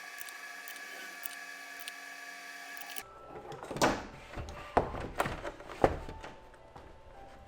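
A steady mechanical whine for about three seconds, then it stops and a series of irregular knocks and clatter follows, like wood and tools being handled on a workbench.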